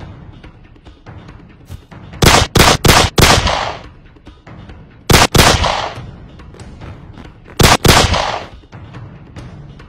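Gunfire: a quick run of four shots about two seconds in, two more shots about five seconds in, and two more near the eight-second mark, each dying away briefly after it. Faint background music runs underneath.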